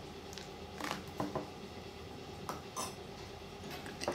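A few faint clicks of a metal spoon against a ceramic bowl of thick marinade paste, with stirring starting near the end.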